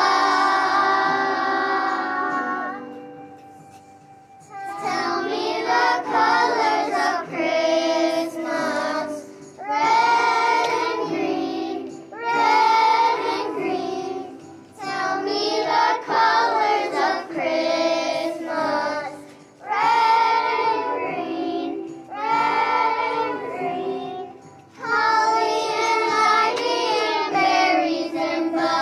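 Young children singing a song together in unison, with a long held note at the start, then short phrases of about two seconds each.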